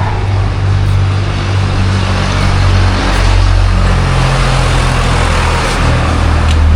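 Motor vehicle engine running close by with a steady low hum, over road traffic noise.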